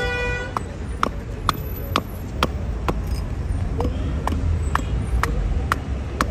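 Hatchet blade striking a wooden block on a chopping stump, sharp knocks about twice a second, hewing the blank of a wooden ladle. A short car horn toot sounds at the very start over a steady rumble of traffic.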